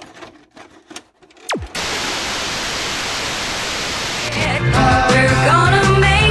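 A few faint clicks, a quick falling whistle-like sweep, then steady static hiss, cut off about four seconds in by intro music with a bass line and melody.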